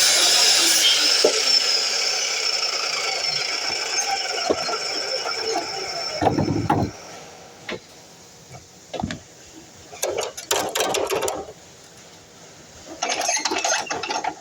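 DeWalt miter saw running and then winding down, its whine falling slowly in pitch as the blade spins down over the first few seconds. After that come a heavy knock and several short bursts of clattering and knocking.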